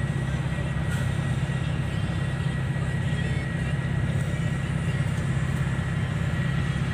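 Steady low drone of a bus engine running, heard from inside the cabin, with a thin steady high whine over it.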